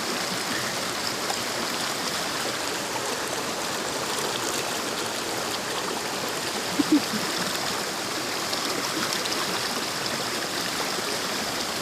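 Steady rushing of flowing water, even throughout, with two short low blips about seven seconds in.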